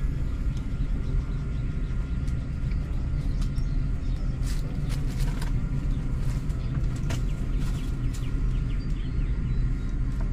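A steady low rumble, with scattered light crackles and clicks over it, most of them in the middle of the stretch.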